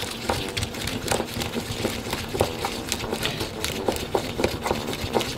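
Irregular clicks and taps, several a second, of a small plastic feeding cup being handled while powdered crested gecko diet is stirred into a wet paste inside it.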